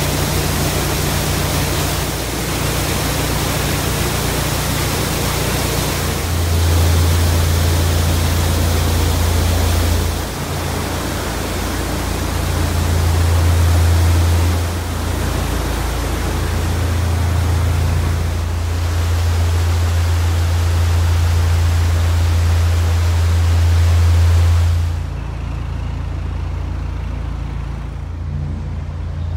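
Water spraying and pouring from the leaking gates of a deep canal lock, a steady rushing hiss, over the low steady hum of a narrowboat's engine. Near the end the rushing fades away, leaving the engine running.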